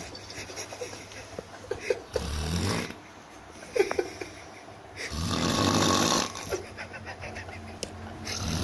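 A sleeping person snoring heavily with a croaky, frog-like sound: two long rasping snores, one about two seconds in and a longer one about five seconds in, with small clicking sounds between them.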